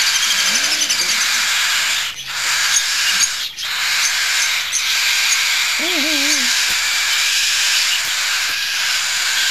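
Baby cockatiel chicks food-begging in the nest: a continuous raspy, hissing chatter that breaks off briefly twice. Two short low voice sounds come in, one near the start and one about six seconds in.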